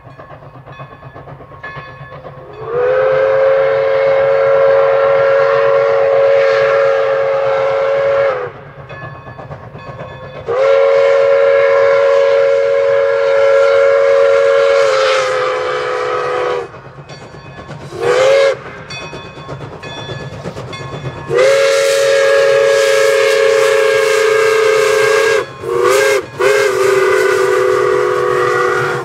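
Nathan six-chime steam whistle on Pere Marquette No. 1225 sounding a full chord. It gives two long blasts of about six seconds each, a short toot, then a final long blast that breaks twice near its end, the long-long-short-long pattern of a grade-crossing signal.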